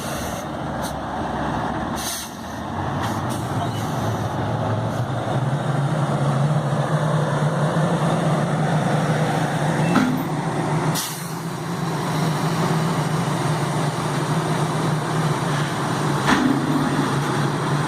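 Heavy dump truck's engine running steadily, with a couple of short sharp sounds about ten and sixteen seconds in.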